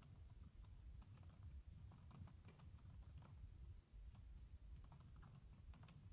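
Faint typing on a computer keyboard: irregular, scattered key clicks over a low steady background rumble.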